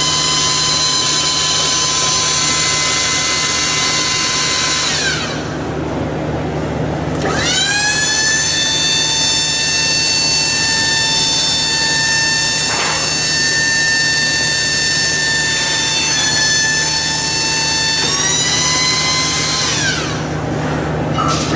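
Handheld power tool running at high speed with a high-pitched whine. It spins down twice, about five seconds in and near the end, and each time spins back up to full speed.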